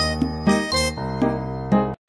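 Background music: a melody of short high notes over held low notes, cutting off suddenly near the end.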